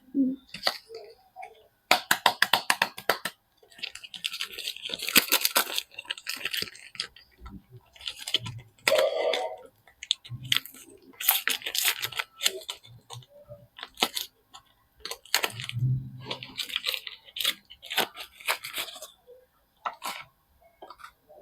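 Soap bars being unwrapped: wrappers crinkling and tearing in irregular bursts, mixed with sharp clicks and taps as the packaging and bars are handled, and a low thud about sixteen seconds in.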